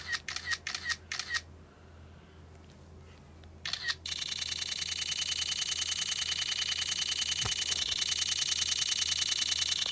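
iPad camera shutter sound in burst mode: a short run of shutter clicks at the start, then from about four seconds in a continuous rapid-fire burst of about ten clicks a second.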